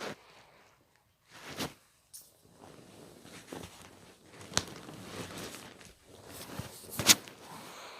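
Stylus or fingertip working a tablet screen: irregular scratchy strokes broken by several sharp taps, the loudest tap near the end.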